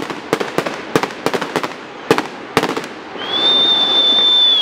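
Aerial fireworks going off as a run of sharp bangs and cracks over the first two and a half seconds. About three seconds in, a high steady whistle rises briefly and then holds to the end.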